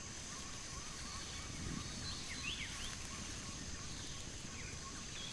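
Tropical rainforest ambience: a steady high-pitched insect drone, with a faint run of repeated calls and a few short up-and-down bird whistles about two to three seconds in.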